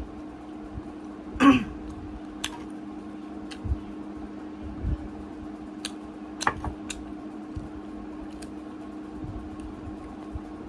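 A person eating a donut: a short throat-clearing sound about a second and a half in, then scattered faint clicks and soft thumps of chewing and mouth noises, over a steady low hum.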